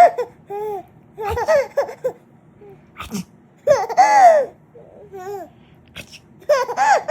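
A six-month-old baby laughing in several separate bursts of high-pitched giggles, the longest and loudest about four seconds in.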